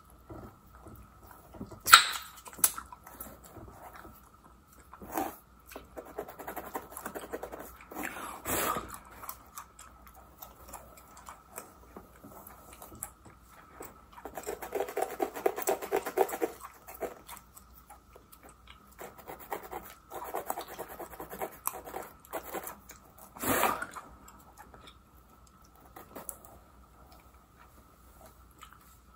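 Close-miked scratching of a plastic rat-tail comb working through the hair and along the parting of a mannequin's wig, with wet gum chewing. There are longer stretches of scratching and a few sharp clicks, about 2, 9 and 24 seconds in.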